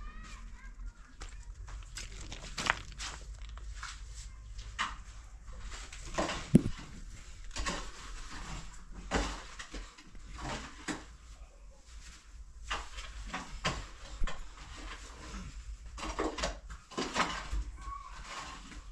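A long-handled digging tool hacking into a packed earth and rubble floor: repeated strikes at an uneven pace, one much louder about six seconds in.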